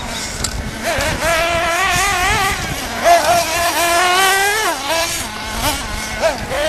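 Small engine of a radio-controlled off-road buggy revving up and down under throttle. Its high pitch climbs and wavers, then drops sharply a little under five seconds in as the throttle is let off.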